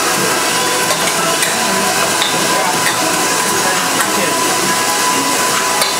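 Steady whir and hiss of KitchenAid stand mixers churning ice cream with liquid nitrogen, with a few light metallic clinks from the steel mixing bowls.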